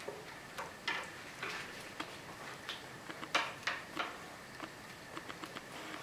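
A cat batting and grabbing at a string-hung feather toy on a sisal-and-wood cat tree: irregular light taps, scratches and rustles of claws, toy and string, the loudest a little over three seconds in.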